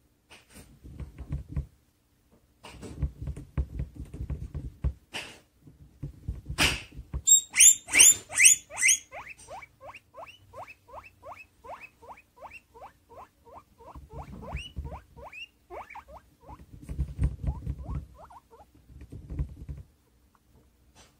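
Guinea pigs wheeking, the food-begging 'piggie alarm' set off by kitchen noise: a burst of loud, high squeals, then a long run of short rising calls about three a second. Before and after the calls, a guinea pig munches food close by with a low, crackly crunching.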